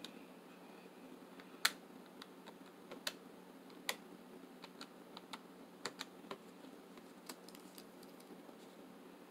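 Faint, irregular clicks of calculator buttons being pressed one at a time as figures are added up, with the sharpest click about one and a half seconds in.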